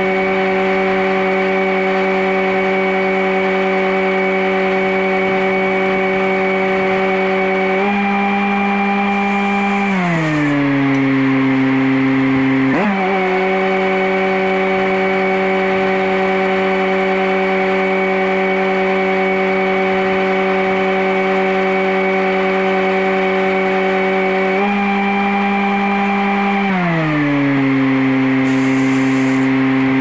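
Stick welding with an engine running steadily beneath it. The engine's pitch sags about ten seconds in, snaps back up about thirteen seconds in, and sags again a few seconds before the end.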